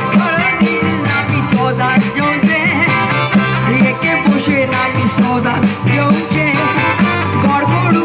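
Live band music heard from the audience through the stage PA: keyboard-led backing with a woman singing.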